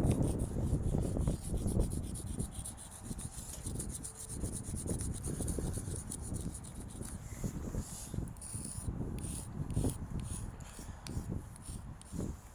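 Chalk rubbed and scraped in repeated short strokes on a rough surface while filling in a drawing, with wind buffeting the microphone, strongest at the start.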